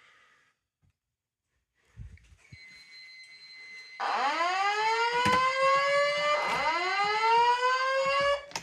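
Fire alarm voice evacuation speakers sounding a whoop tone, set off by a Simplex 5451 heat detector under test: two loud rising sweeps of about two and a half seconds each. A faint steady high beep starts a little earlier.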